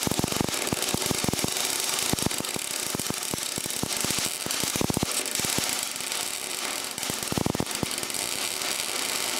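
MIG welder arc crackling steadily as a bead is laid on steel frame metal, with two brief dips in the crackle, then the arc cuts off at the end.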